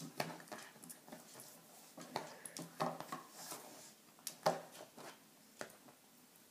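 Small dog's claws scratching and tapping at the edge of a wooden table as it paws at it: irregular clicks and scrapes, the sharpest about four and a half seconds in.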